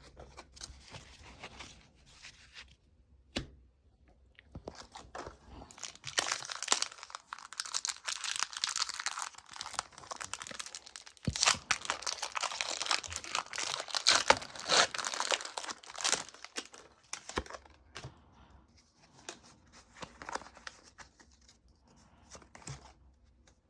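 A foil Pokémon booster pack wrapper being torn open and crinkled, loudest through the middle, with lighter rustling of the pack and cards before and after.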